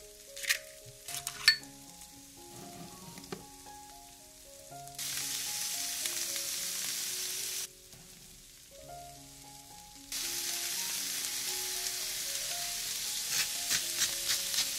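Sliced carrots and onion sizzling in a frying pan, a steady hiss that starts about five seconds in, drops out for a couple of seconds and comes back. Near the end a salt grinder clicks quickly over the sizzle. Soft background music plays throughout, with a few sharp clicks in the first two seconds.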